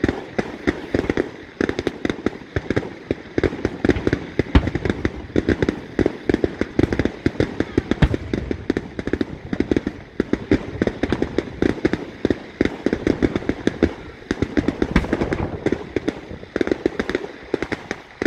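Aerial fireworks bursting in a dense, unbroken run of sharp bangs and crackles, several a second. A few louder bangs come about four and eight seconds in.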